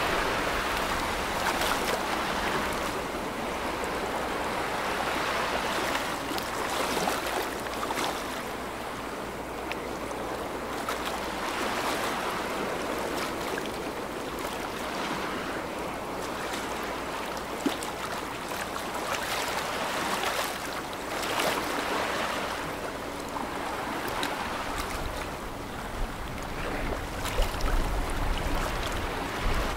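Rushing, splashing water from a passing container ship's bow wave and wash, swelling and fading every several seconds, over a faint low steady hum.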